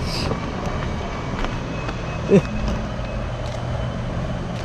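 An engine or motor running with a steady low hum, with faint scattered clicks. A short pitched sound about two seconds in is the loudest moment.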